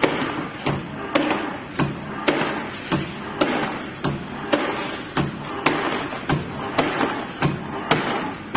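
CNC spring coiling machine (NZT-42) running through its spring-forming cycle: a steady mechanical whir with a sharp metallic knock repeating evenly, nearly twice a second.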